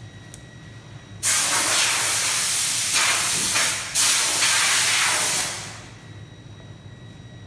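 A loud, steady hiss in two long bursts, as from a jet of air or spray. It breaks off briefly just before the middle, then resumes and fades away.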